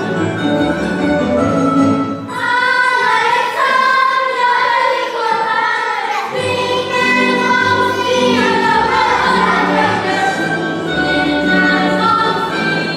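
Croatian folk dance music: instrumental playing, then a group of voices singing from about two seconds in while the low accompaniment drops out, with the fuller accompaniment back under the singing about halfway through.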